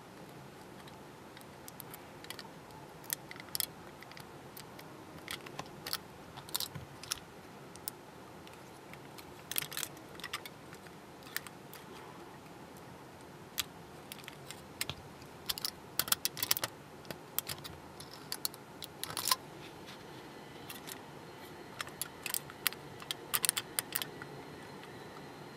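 Irregular small clicks and crackles of thin aluminium foil being pinched and creased with metal tweezers, coming in scattered clusters over a faint steady hiss.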